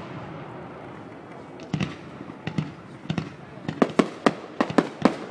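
Fireworks display: after a faint crackling haze, a rapid string of sharp bangs starts about a third of the way in and comes faster and faster toward the end.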